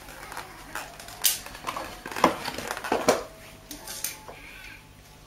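Stiff clear plastic clamshell packaging being handled and squeezed, giving a few separate crackles and knocks.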